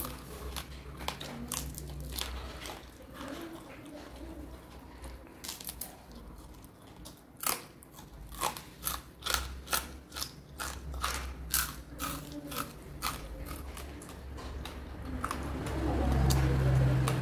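Close-up chewing and biting of crunchy food, with a run of loud sharp crunches in the middle and a louder low rumble near the end.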